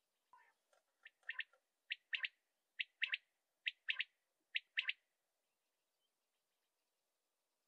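Male common quail singing: five quick three-note 'wet-my-lips' phrases, each a short note followed by a quick pair, about one phrase a second. A few fainter, lower notes come first, and the song stops about five seconds in.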